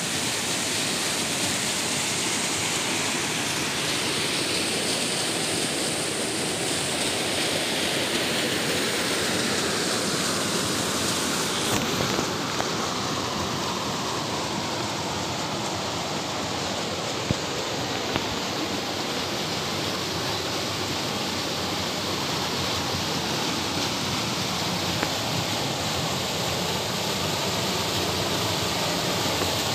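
Mountain stream rushing over rocks and small cascades: a steady wash of running water, its tone shifting slightly about twelve seconds in.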